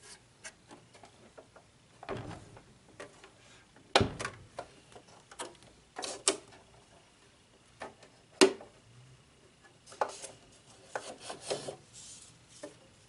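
Handling of a Brother LX3817 sewing machine's plastic body and its cardboard packing insert while unpacking: scattered knocks, clicks and rubbing. The two loudest knocks come about four and eight seconds in.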